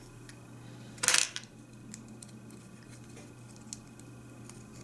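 Small metal dowel-centre markers and a wooden lath being handled over a plastic parts box: a few light clicks and clinks, with one brief, louder burst of handling noise about a second in.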